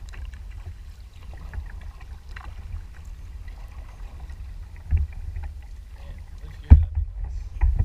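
Kayak being paddled: a steady low rumble with faint splashes and ticks, and a few sharp knocks against the boat, the loudest near the end.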